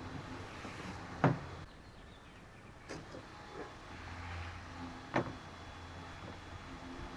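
A few sharp clicks and taps as the parts of an electric pressure washer's wand and trigger assembly are handled and pressed together during a repair. The loudest click comes about a second in, with two more at about three and five seconds, over a faint steady hum.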